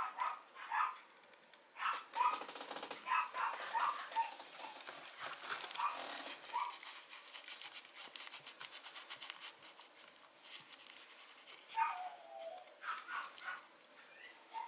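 Mame shiba puppy giving many short, high yips and little barks in play, with one longer falling whine about twelve seconds in. Scrabbling and rustling of paws and a plush toy on cloth.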